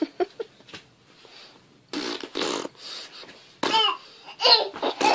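A baby blowing raspberries with its mouth pressed against an adult's bare arm, making fart-like buzzes about two seconds in. This is followed by a few short, high-pitched baby vocal sounds near the end.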